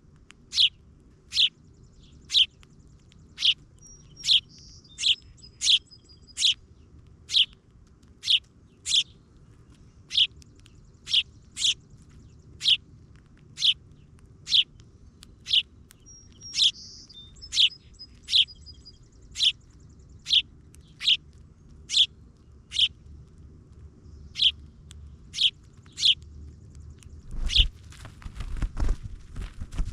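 A small bird chirping one short, sharp, high note over and over, about one to two a second, with a softer buzzy twitter twice. Low thumps and rustling come in near the end.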